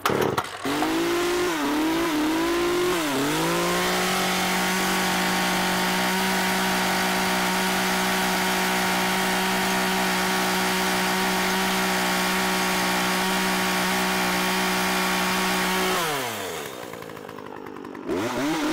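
Small two-stroke gas chainsaw just pull-started, revving unevenly for the first few seconds, then held at a steady high speed. About sixteen seconds in it drops back toward idle and goes quieter, then revs up again near the end.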